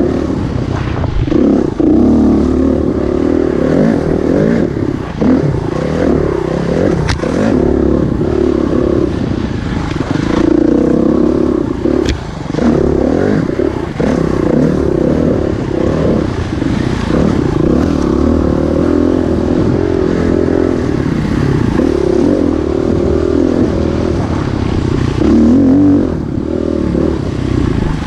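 Off-road motorcycle engine running along a dirt trail, its pitch rising and falling as the throttle is worked, with the bike rattling over rough ground and a couple of sharp knocks.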